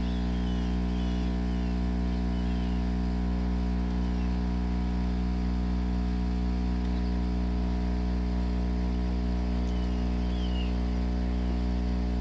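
Mr Cool 4–5 ton inverter heat pump outdoor unit running in reverse (defrost) mode to melt ice off its coil, giving a steady electrical hum of many low tones.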